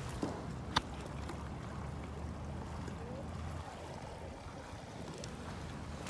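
Steady seaside ambience of wind and water noise, with a low rumble under it. One sharp click just under a second in.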